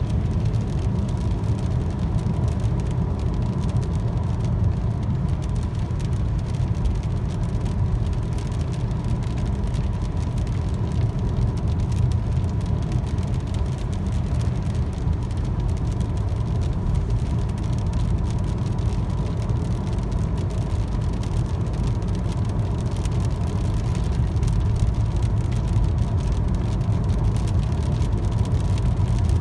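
Steady road noise inside a moving car's cabin: a low rumble from the tyres on wet pavement, with a faint steady high whine.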